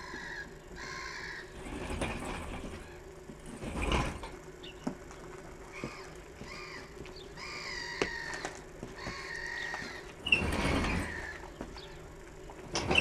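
Squeaking from a steel engine crane as it is worked and wheeled across concrete, with sharp metal clanks about four seconds in and again near ten seconds in.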